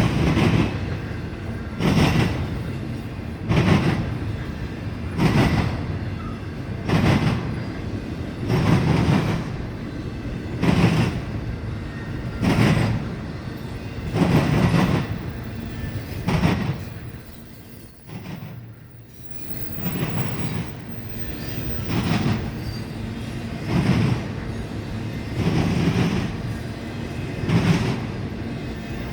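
Freight cars of an intermodal train rolling past, their wheels pounding over the rail joints in a steady rhythm, with a loud burst about every two seconds and a brief lull about two-thirds of the way through.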